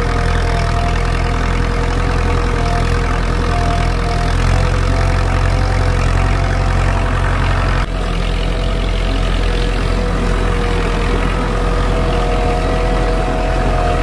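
IMT 565 tractor's four-cylinder diesel engine running steadily while pulling a plough, heard from inside the cab. A steady high whine runs over the engine hum, and the sound dips briefly just under eight seconds in.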